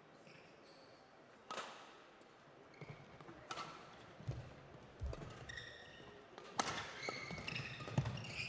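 Badminton rally: several sharp racket hits on the shuttlecock, the first about a second and a half in, with shoe squeaks and thuds of footwork on the court floor that grow busier towards the end.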